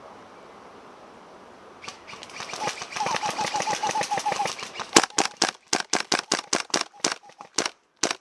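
Airsoft guns firing in a firefight: a rapid full-auto rattle starts about two seconds in, then gives way to louder, sharp single shots at about four a second.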